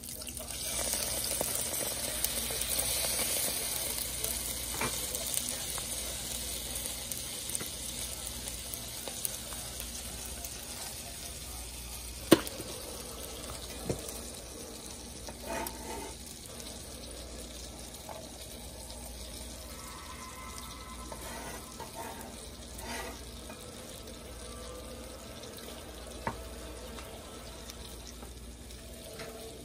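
Butter sizzling in a hot frying pan, swelling for a few seconds as key lime juice is poured in, then settling to a steady sizzle. A sharp knock sounds about twelve seconds in, with a lighter one shortly after.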